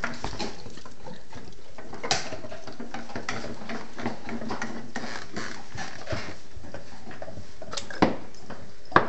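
Dogs gnawing and chewing on bones, making irregular crunching and scraping clicks with a few louder knocks: one about two seconds in and two near the end.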